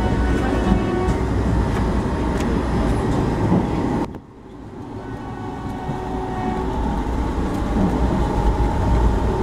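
Running noise inside an ICF-built Indian Railways AC coach on the move: a steady low rumble. About four seconds in, it drops away suddenly, then builds back up over the next few seconds.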